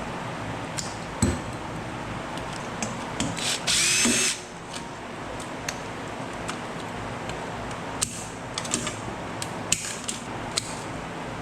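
A power drill/driver whirs briefly, for under a second, about four seconds in, among scattered clicks and knocks of tools and parts being handled while an electronic cabinet is taken apart.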